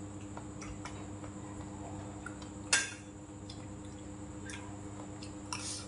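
Chopsticks and a spoon clicking lightly against a stainless steel rice bowl, with one sharp clink about three seconds in and another near the end, over a steady hum.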